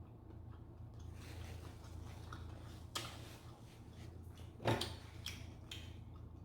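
Eating sounds during a seafood meal: soft chewing and mouth clicks with a few sharp taps of food or utensils being handled, the loudest a knock about halfway through, over a steady low hum.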